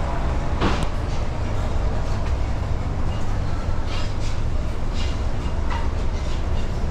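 Market hall ambience: a steady low rumble with scattered clatter and knocks, one sharper knock just under a second in.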